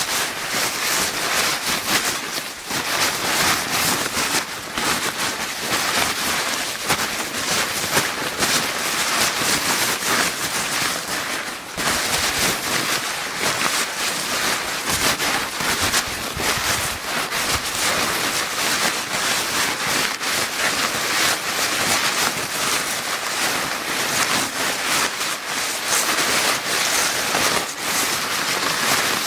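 A paper bag being crinkled without a break: a dense, steady rustling dotted with many small crackles.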